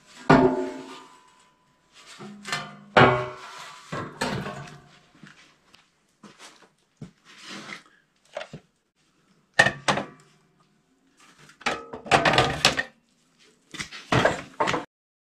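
Sheet-metal dash panel clanking and knocking as it is handled and set on a wooden stool: about a dozen separate knocks, some ringing briefly, with short silent gaps between.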